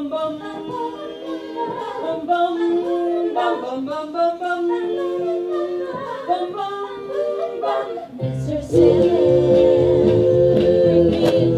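Women's voices singing in close harmony, unaccompanied at first. About eight seconds in, a band with a bass line comes in under a long held chord.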